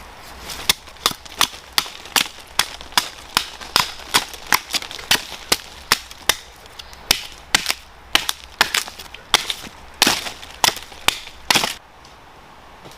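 A fast run of sharp, hard blows, about two or three a second, that stops about a second before the end.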